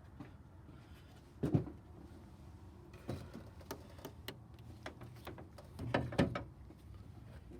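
A few scattered clicks and knocks of hand tools and metal parts being handled, the loudest about a second and a half in and a pair near the end, over a faint low hum.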